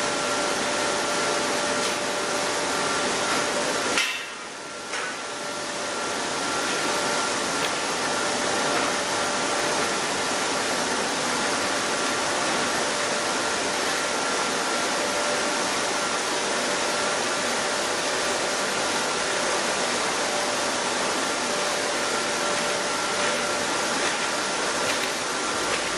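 Chili powder milling machinery running: a steady rushing noise with two faint steady whines, one high and one lower. About four seconds in there is a sharp click, and the noise dips, then builds back over a couple of seconds.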